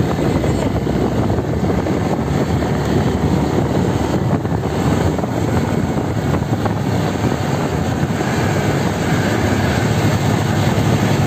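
Motorcycle riding at a steady speed: the engine's running sound mixed with wind rushing over the microphone, even throughout.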